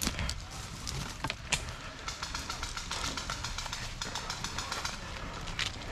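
Several short bursts of rapid automatic airsoft gun fire, a fast even clatter, over a steady rumble of wind and movement on the microphone, with a few sharp clicks in the first second and a half.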